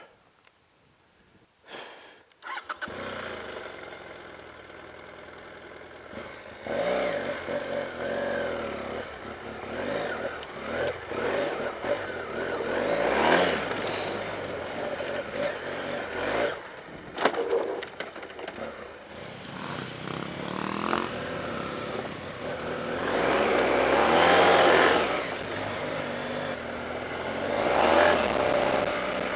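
BMW F 800 GS parallel-twin engine running as the motorcycle is ridden off-road, its pitch rising and falling with the throttle. The sound comes in about three seconds in, after near silence, and swells several times as the rider opens the throttle.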